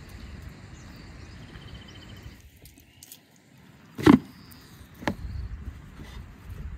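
A whole lamb carcass thudding down onto a table: one loud heavy thud about four seconds in and a lighter one a second later, over a low rumbling background.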